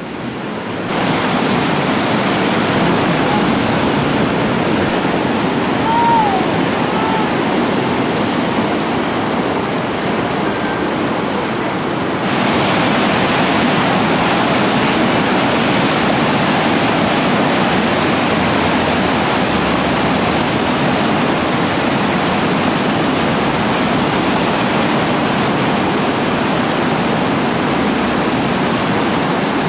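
Whitewater rapids rushing steadily. The rushing steps up louder and brighter about twelve seconds in.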